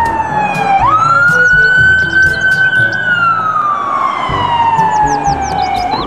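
Police siren wailing: the pitch slides down, jumps back up about a second in, holds, then slowly falls again. A low background music beat runs underneath.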